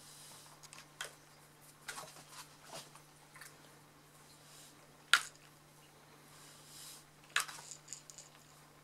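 Shih-Tzu puppy snapping at soap bubbles, its jaws clacking shut in a handful of sharp snaps, the loudest about five seconds in.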